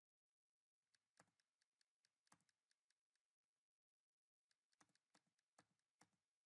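Near silence, with two short flurries of faint clicking at the computer: one about a second in, and another shortly before the end.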